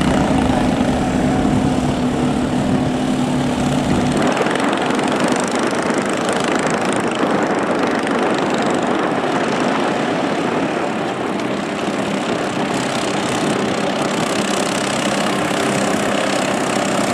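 Small 7 HP petrol engines of vỏ lãi racing boats running hard and steadily. About four seconds in, the engine note changes and becomes rougher.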